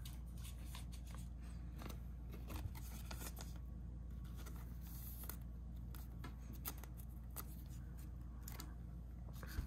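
Faint rustling and light clicks of a clear plastic card sleeve being handled as a Pokémon card is slid into it, over a low steady hum.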